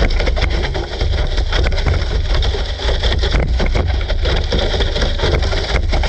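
GPTOYS S912 RC car running across grass, heard from a camera riding on a sled behind it: a steady heavy rumble with constant rattling and knocking as the sled bounces over the lawn.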